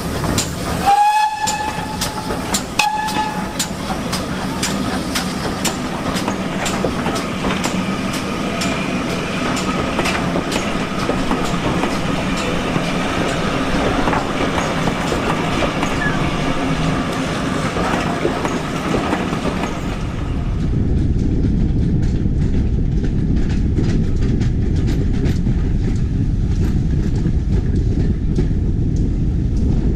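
GWR 2800-class steam locomotive No. 2857 sounds two short whistle blasts, then its coaches roll past with a steady run of wheel clicks over the rail joints. About two-thirds through, the sound changes to a lower, steady rumble of a moving train.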